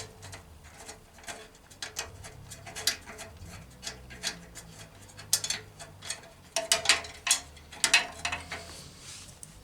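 Irregular metallic clicks and clinks of hand tools working a bolt on a radiator mounting bracket, with a busier run of clicks near the end.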